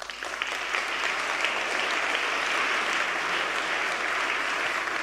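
A large audience applauding: a dense, steady wash of many hands clapping that starts right away and holds at an even level.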